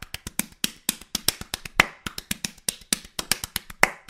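Sparse percussive music: quick, dry clicks and taps, several a second, with a louder accent about every two seconds.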